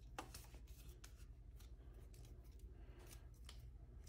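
Faint clicks and rubbing from hands turning and fitting a plastic phone mount on a metal bracket, a few separate clicks over a low steady hum.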